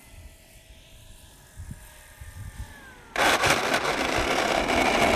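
Faint whine of the RC Cessna 150's electric motor, slowly falling in pitch. About three seconds in, a sudden loud rushing noise cuts in and stays.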